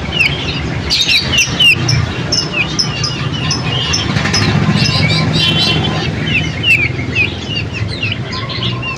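Small songbirds chirping and calling over one another, a dense run of short high chirps and whistles, over a low steady hum.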